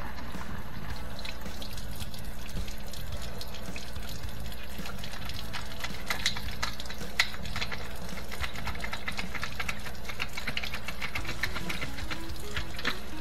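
Water pouring and trickling through an old dishwasher's rinse-aid dispenser as it is flushed out to clear dried rinse-aid buildup, with many small scattered clicks and taps over a steady low hum.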